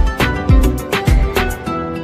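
Background music with a steady beat of low drum thumps, about two a second, under held instrument notes.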